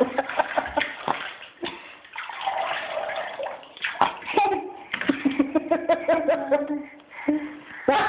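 Bath water splashing and pouring in a tub as a child scoops it with a plastic cup, with quick splashes early on and a stretch of running water. A child's voice sounds for a couple of seconds in the second half.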